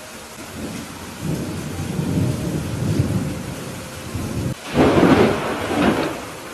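Thunderstorm with steady heavy rain. A low rumble of thunder builds from about a second in, then a loud crackling thunderclap breaks out near the end and rolls away.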